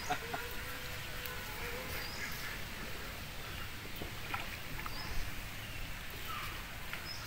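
Quiet rural outdoor background with scattered short, high bird chirps over a low steady rumble.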